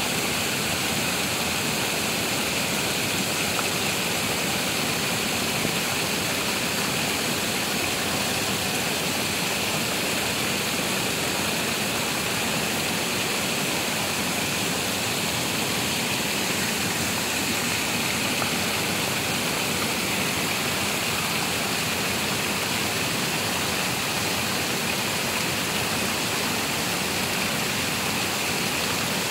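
Steady rush of turbulent water pouring through a weir, an even, unbroken roar.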